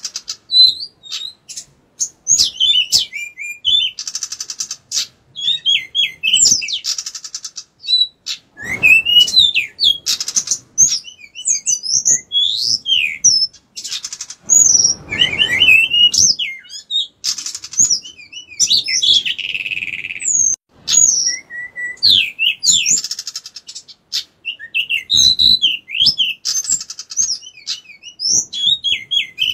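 Caged male pied bushchat (decu) singing actively: a fast, varied song of short sweeping whistles and rapid buzzy trills, repeated phrase after phrase with brief pauses.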